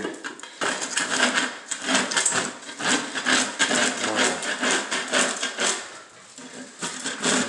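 Scraper knife rasping peeling paint off a textured plaster ceiling in repeated strokes, about two or three a second, with a short lull about six seconds in.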